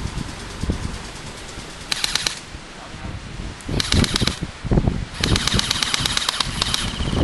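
Airsoft electric guns (AEGs) firing on full auto: three bursts of rapid clicks with a motor whine underneath, a short one about two seconds in, another around four seconds, and a longer one from about five to seven seconds. Wind buffets the microphone underneath.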